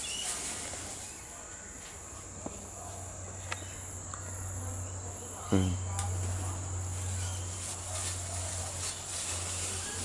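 Steady, high-pitched insect chirring over a low steady hum, with a few faint ticks and a short falling pitched sound about five and a half seconds in.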